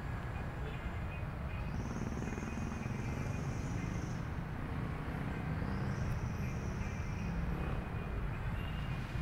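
Steady outdoor background noise, mostly a low rumble. A faint high-pitched sound swells and fades twice.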